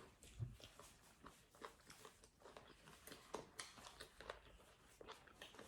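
Faint, close eating sounds: a person chewing and biting spicy chicken-feet salad, with scattered small crunches and mouth clicks.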